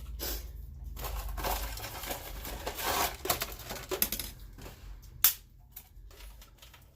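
Crinkling and crackling handling noises with many light clicks, and one sharp knock about five seconds in, quieter over the last two seconds.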